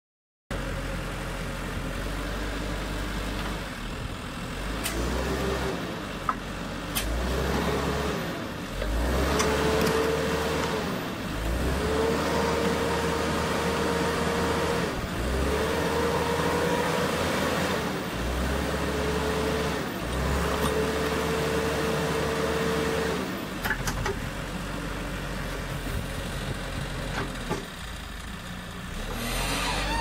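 Skid steer loader's engine running, with a steady whine that comes and goes several times through the middle as the hydraulic tree spade drives its blades into the soil, the engine note dropping under each load.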